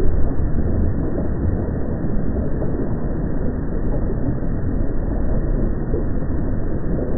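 Steady, low rumbling roar from a field recording at an active volcano, with no highs, slightly louder at the very start.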